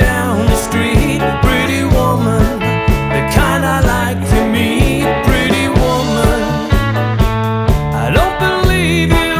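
A rock band playing a 1960s-style song: a steady drum beat, bass and guitar, with a singing voice over them.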